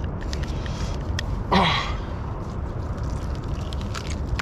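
Steady low rumble with a few faint clicks, and a short grunt from a man about a second and a half in, falling in pitch.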